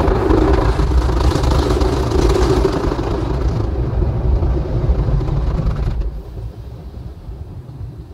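Automatic gantry car wash running over the car, heard from inside the cabin: a loud, dense wash of water and machine rumble that dies down sharply about six seconds in.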